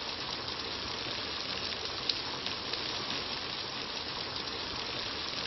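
A steady hiss with scattered faint crackles and clicks.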